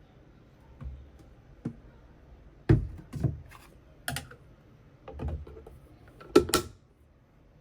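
A string of irregular knocks and clicks, about eight in all, the loudest a little under three seconds in and a close pair near the end.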